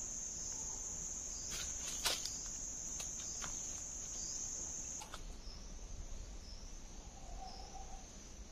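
A steady, high-pitched insect drone, cricket-like, with a few sharp clicks over it. About five seconds in the drone drops abruptly to a fainter, wavering one.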